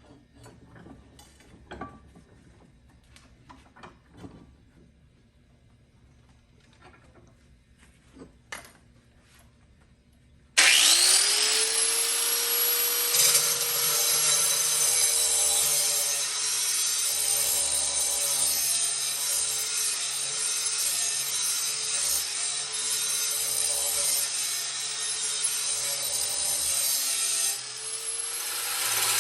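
A few light knocks and clicks of handling, then about ten seconds in a Chicago Electric 4-1/2 inch angle grinder starts with a rising whine and runs loud, its abrasive wheel grinding the edge of a steel lawnmower blade. Near the end it dips briefly and spins back up.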